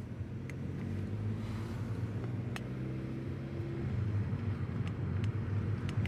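A car's engine and tyre noise heard from inside the car as it climbs a mountain road with a window open: a steady low hum that grows a little louder about four seconds in.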